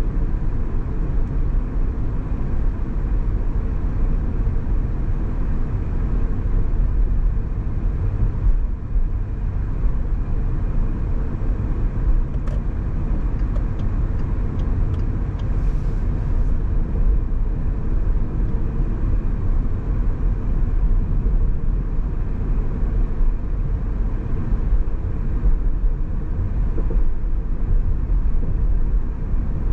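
Car driving on the road: a steady low rumble of engine and tyre noise, with a short run of faint ticks a little past the middle.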